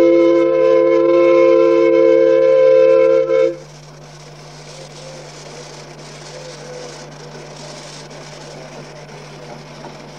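Miniature steam locomotive's whistle blowing a steady chord-like blast of several notes at once, which cuts off about three and a half seconds in. A much quieter steady hiss follows.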